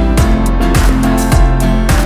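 Background music with a steady beat, about two beats a second, over held chords and a deep bass.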